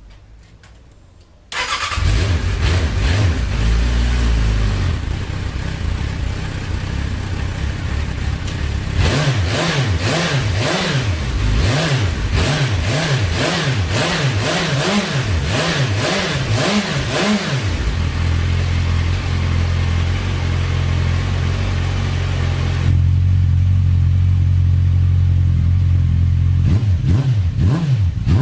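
Suzuki Bandit 650's inline-four engine and exhaust: started about a second and a half in, then idling. A run of about a dozen quick throttle blips, roughly one a second, follows, then it settles back to a steady idle.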